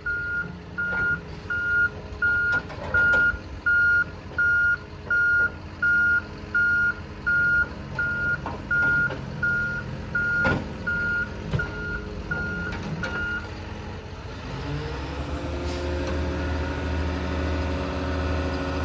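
Heavy truck backing up with its reversing alarm beeping, about three beeps every two seconds, over the low running of its engine; the beeping stops about three-quarters of the way through. Then the engine revs up and keeps running steadily.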